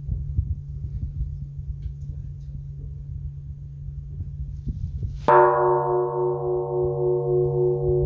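Korean Buddhist temple bronze bell struck once with a wooden log about five seconds in, then ringing on with a long, wavering, pulsing hum. Before the strike a low hum from the bell is already sounding.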